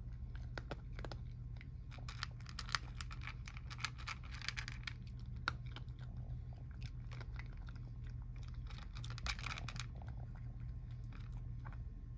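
Tabby cat crunching dry kibble from a plastic bowl: a stream of irregular crunches and clicks, thickest twice in quick runs, over a steady low hum.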